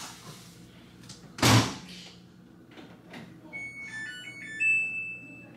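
Stacked front-loading washer and dryer: a loud thump of a machine door being shut about a second and a half in, then the control panel's electronic beeps, a short tune of stepping tones ending on one held beep.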